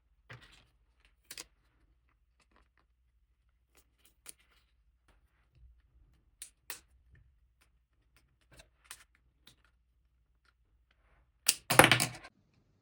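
Sparse light clicks and taps of hands handling a plastic toy and its packaging, with a louder burst of clicking and rustling near the end.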